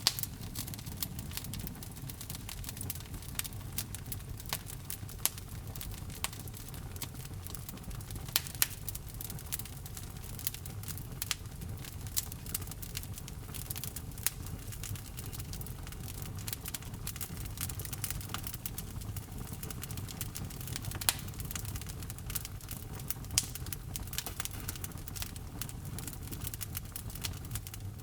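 Wood fire burning in a fireplace, with frequent irregular crackles and sharp pops over a steady low rumble of the flames.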